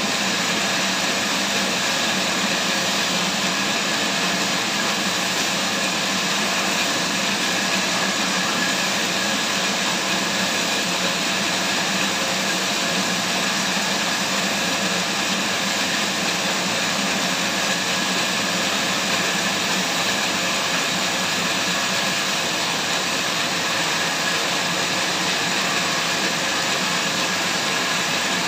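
Sawmill saw running steadily as it cuts through a large log: a constant mechanical drone with a steady hum and a higher whine, holding the same pitch and level throughout.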